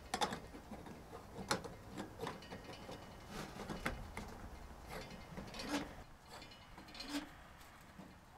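Small stainless steel moka pot being assembled by hand: scattered, irregular metallic clicks and scrapes as its parts are fitted and screwed together.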